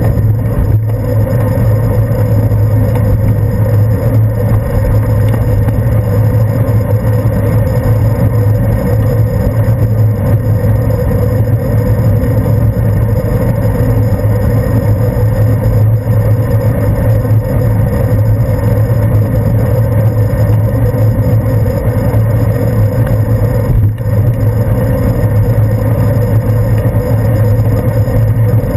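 Steady, loud rumble of a bicycle rolling along a paved street, picked up through a GoPro Hero 2 clamped to the handlebars: road and tyre vibration carried into the camera.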